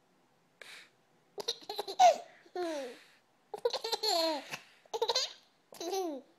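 About one-year-old baby boy laughing in about five bursts, each a squealing laugh that falls in pitch, with a breathy puff before the first.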